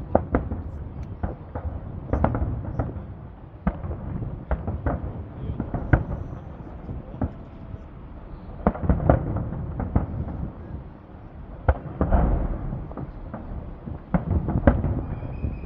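Fireworks salute: shells bursting in irregular, sharp bangs over a low rumble, with dense volleys about nine seconds in and again about twelve seconds in.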